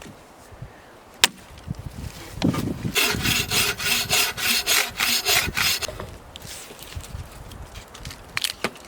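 Hand saw cutting through a piece of wood, about three seconds of quick, even rasping strokes. It is preceded by a single sharp click.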